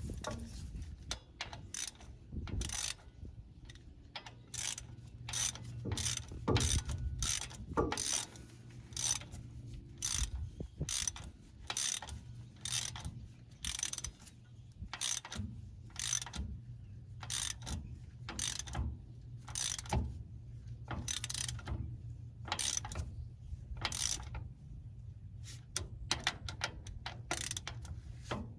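Hand ratchet wrench being worked back and forth, a short burst of clicks on each return stroke, about one and a half strokes a second, with a steady low hum underneath.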